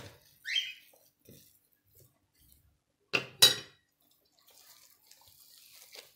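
A metal spoon clinking and scraping against a stainless steel tray, with two sharp clinks a little past three seconds in. After that comes a faint, soft wet squishing as a gloved hand kneads oil into bulgur çiğ köfte.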